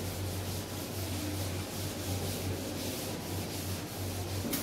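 Felt chalkboard duster rubbing across a chalkboard, wiping chalk writing off in repeated strokes, over a steady low hum. A sharp click comes near the end.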